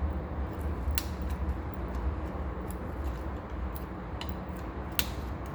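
Hand tools clicking and scraping on metal while a part is worked loose from the lower end of a 1976 Corvette's steering column, with two sharper clicks, about a second in and near the end. A steady low hum runs underneath.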